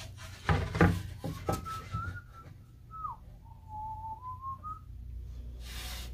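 A man whistling a short, wavering tune. A few wooden knocks come just before it, as a paddle and boards are set down on the workbench, and there is a brief rub of wood near the end.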